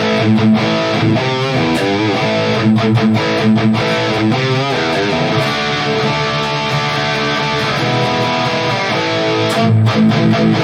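Electric guitar played through a Valeton GP200 modeler on a high-gain distorted amp model: sustained distorted chords and notes, some wavering in pitch.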